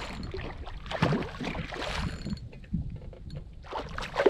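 A hooked redfish thrashing and splashing at the water's surface while being played on a rod. There are bursts of splashing, one about a second in and another near the end.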